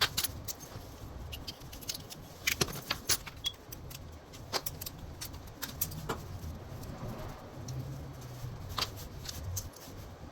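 Irregular sharp metallic clicks and taps of lock cylinder parts, pins and small tools being handled, over a low steady hum.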